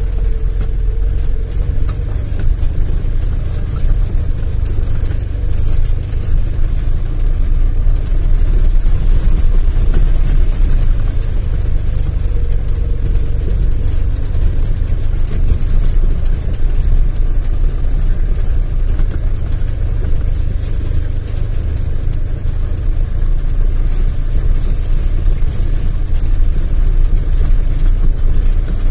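Vehicle driving slowly through a flooded, icy meadow, heard from inside the cab: a steady low rumble of engine and tyres with a dense, constant crackle on top.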